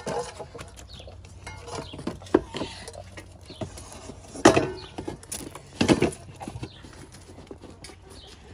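Doberman eating raw food from a stainless steel bowl: wet chewing and lapping with many small clicks, and the metal bowl knocked sharply twice, about halfway through and a second and a half later.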